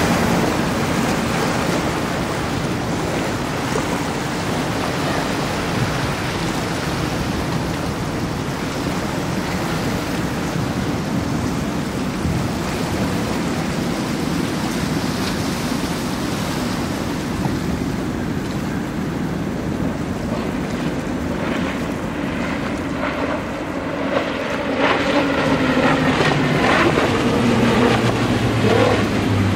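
Multi-outboard center-console powerboats running at speed through an inlet: the drone of their outboard engines mixed with the hiss of spray and waves, and wind on the microphone. Louder near the end, with a steady low engine drone as a boat passes close.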